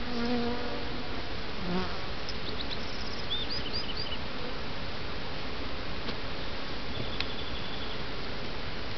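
Honeybees buzzing around an opened nuc box as its frames are worked, a steady hum of many bees, with single bees droning close past in the first second and again near two seconds in.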